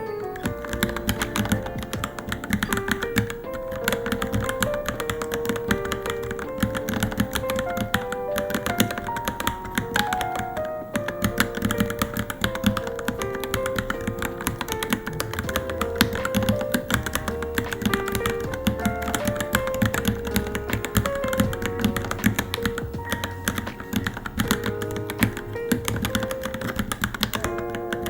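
Rapid, continuous typing on a Varmilo Minilo mechanical keyboard, a dense run of key clicks, over background music with a stepping melody.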